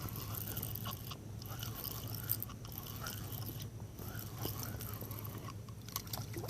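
Fishing reel being cranked to bring in a hooked small bass, with a steady grinding, crunchy whir and small clicks.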